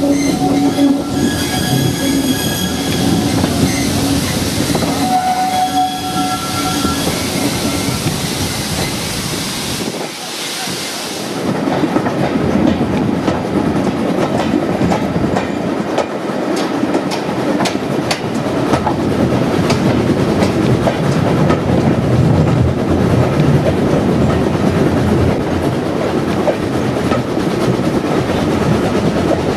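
1948 Robert Stephenson and Hawthorn 0-4-0 saddle-tank steam locomotive working hard up a steep 1-in-38 incline, heard from the train behind it along with the wheels clicking over the rail joints. High ringing tones come and go twice in the first several seconds, before the sound thickens into a dense, steady working noise.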